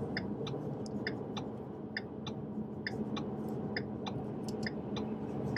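2015 Ford Mustang's turn-signal indicator ticking inside the cabin, a steady tick-tock about twice a second, over a low hum of engine and road noise.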